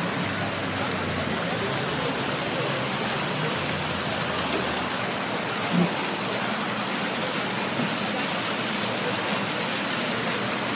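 Steady splashing of the Fontaine Saint-Michel's falling water. A single short thump sounds a little past halfway.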